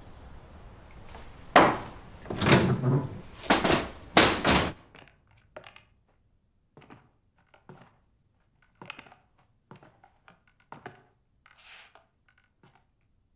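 A run of loud, heavy thuds and bangs over the first five seconds, then only faint scattered clicks.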